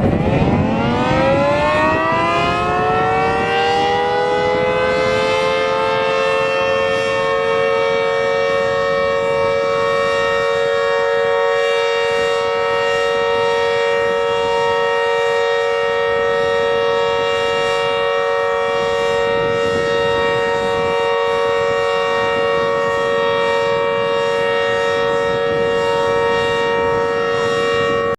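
Emergency warning siren winding up from a low pitch over the first few seconds, then holding a loud, steady tone of several notes at once until it cuts off abruptly at the end.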